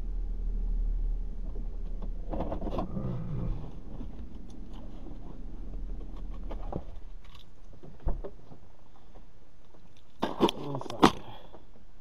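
Low, steady rumble of a car running that fades out about seven seconds in, followed by a knock and then three sharp clicks close together near the end.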